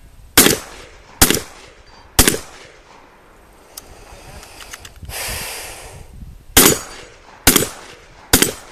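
Shotgun fired at steel targets: three loud shots about a second apart, a pause of about four seconds, then three more shots about a second apart.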